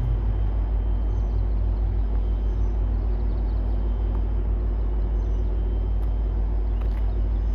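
Tri-Rail commuter train's diesel locomotive running steadily at the station on a clear departure signal: a constant low rumble with a faint steady engine tone.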